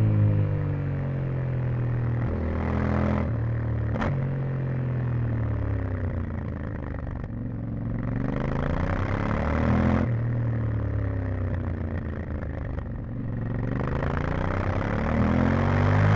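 Yamaha Ténéré 700's 689 cc parallel-twin engine with its stock exhaust, heard from on the bike: the revs fall off throttle, climb again from about 8 s, drop suddenly around 10 s, then climb again from about 13 s. Wind rush rises with each climb, and there is one sharp click about 4 s in.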